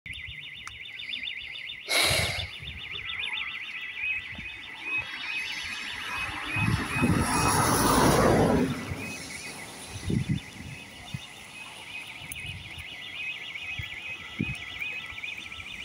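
Level crossing warning alarm sounding with a steadily repeating electronic warble while the barriers are down. There is a short loud burst of noise about two seconds in and a louder rushing noise for a couple of seconds in the middle.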